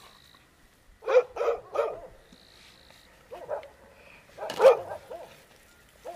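Dog barking in short calls: three quick barks about a second in, a couple more around three and a half seconds, and a louder bark near four and a half seconds.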